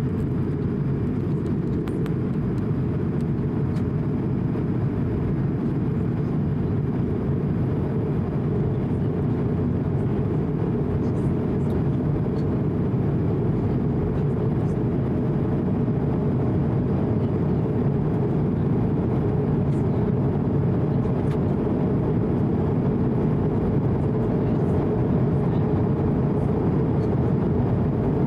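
Steady cabin noise of an Airbus A220-100 in flight: a dense low rumble from its Pratt & Whitney PW1500G geared turbofans and the air rushing over the fuselage, with a faint steady high tone above it. The noise grows slightly louder toward the end.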